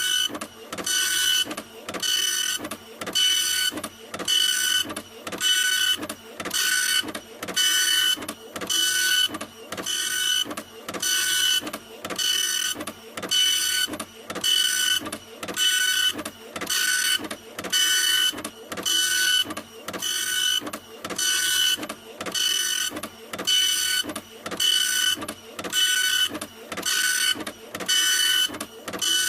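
Printer running steadily, its print head moving back and forth in even passes, about three every two seconds, each pass a short mechanical whine.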